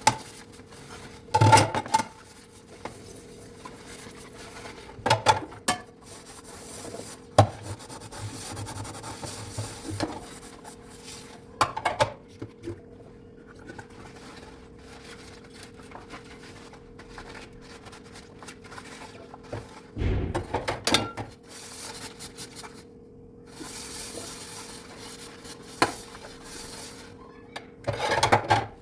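Dishes being washed by hand: now and then plates and cutlery clatter and knock against each other, with soft scrubbing and rubbing between. A steady faint hum runs underneath.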